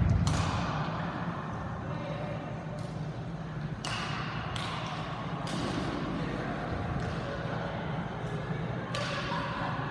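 Badminton rackets striking a shuttlecock during a rally: several sharp cracks at uneven gaps, a few seconds apart at first and then closer together in the middle, each echoing in a large sports hall.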